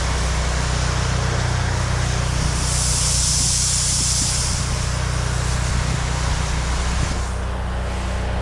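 Engine-driven pressure washer running steadily, with a spell of high-pressure spray hissing for about two seconds in the middle.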